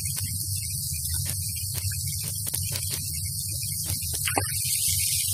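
Steady low electrical hum with hiss, crossed by irregular light clicks of a spatula scraping and tapping in a kadhai as chopped vegetables are stirred.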